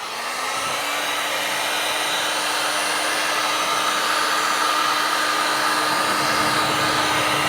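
A handheld electric motor tool or blower switches on, spins up quickly and then runs steadily at an even pitch.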